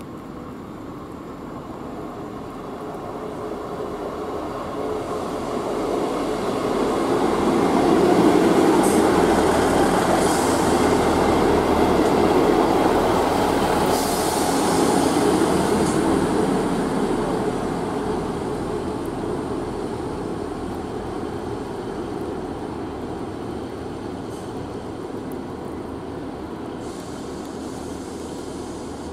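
A Northern Class 158 diesel multiple unit passing close by: its underfloor diesel engines and wheels on the rails grow steadily louder to a broad peak in the first half, with a few short high-pitched squeaks as it goes past, then fade slowly as it draws away.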